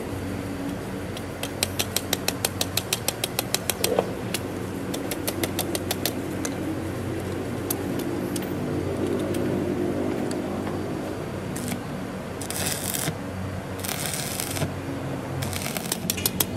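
An engine running steadily. A rapid clicking, several clicks a second, sets in about one and a half seconds in and lasts a couple of seconds. Short hissing bursts come near the end.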